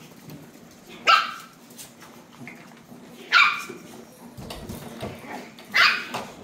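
Chihuahua barking during play: three short, high-pitched barks about two and a half seconds apart.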